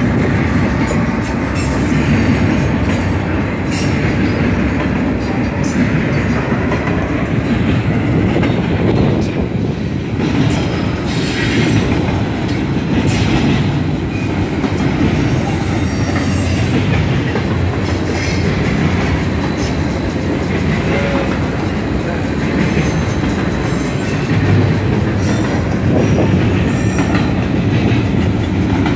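Double-stack intermodal container cars of a freight train rolling past close by: a loud, steady rumble of steel wheels on rail, broken by intermittent clacks and brief higher squeals from the wheels.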